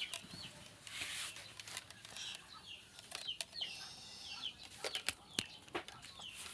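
Chickens clucking and chirping in short repeated calls, with several sharp clicks or knocks in between.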